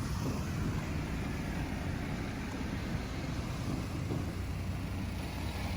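Steady low vehicle rumble, with no clear rhythm or repeating tones.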